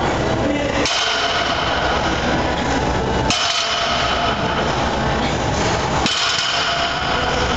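Loaded barbell's weight plates knocking and clanking against the gym floor as sumo deadlift reps are set down and pulled again, over constant loud background noise.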